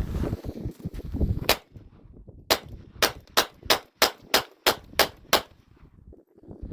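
Gunshots: a single shot, then a rapid string of nine more at about three a second.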